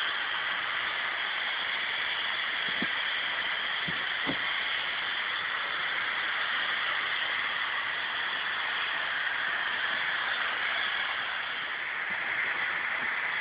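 Steady hiss, even throughout, with a few faint knocks about three to four seconds in.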